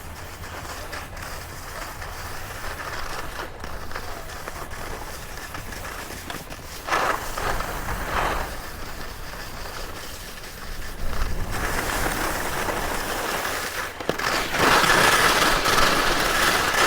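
Skis sliding and scraping over snow during a downhill run, with wind rumbling on the microphone. There are two short scrapes about seven and eight seconds in, and the rushing gets louder in the last few seconds.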